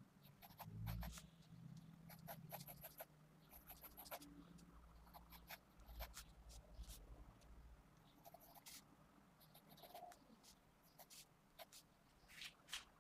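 Faint scratching of a 0.5 mm 2B mechanical pencil lead on paper, in short quick strokes that come in small runs, sketching.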